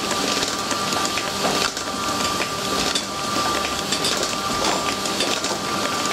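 Electric mortar mixer churning thick grey cement paste in a steel bowl: a steady gritty swishing and scraping from the beater and scraper blade, with a constant motor whine underneath.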